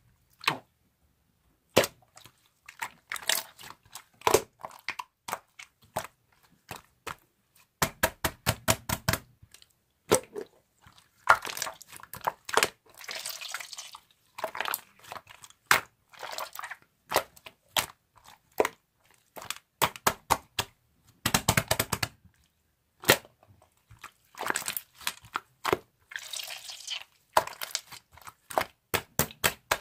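Slime being squished and poked by hand: rapid sticky clicks and wet pops in bursts, with a few short crackly stretches.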